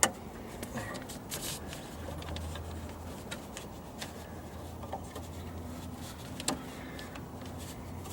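Clicks and taps of a car door handle and its clips being worked into place by hand. A sharp snap comes at the start and another about six and a half seconds in, with lighter ticks between, over a low steady hum.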